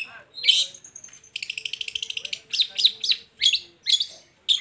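Long-tailed shrike (cendet) singing: a string of sharp, varied chirps and short whistles, with a fast rattling trill a little over a second in.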